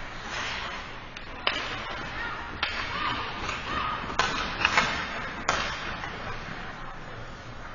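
Ice hockey play: about four sharp cracks of sticks hitting the puck and the puck striking the boards, over a steady scrape of skates on the ice.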